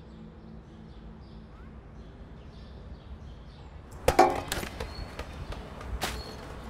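A sudden loud crash with a short clattering tail about four seconds in, like something hitting hard and breaking, then a single sharp knock about two seconds later, over a low steady background.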